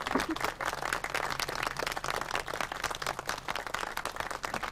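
A small crowd applauding, many hands clapping irregularly.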